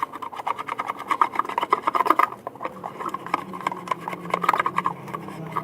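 Glue-and-food-colouring slime mixture being stirred in a container, giving a rapid run of sticky clicks and squelches. A faint steady low hum comes in about halfway through.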